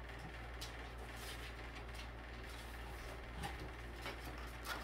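Paper pages of a hardcover book being leafed through, with a few faint brief rustles and flicks, over a steady low hum.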